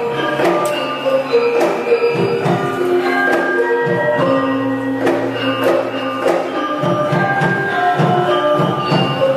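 Instrumental processional music: a melody of held notes over a repeated drum and percussion beat.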